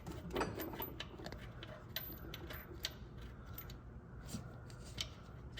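Scattered light metallic clicks and taps, irregularly spaced, from handling an exhaust manifold bolt that will not start straight in a small block Chevy's manifold because the holes don't line up.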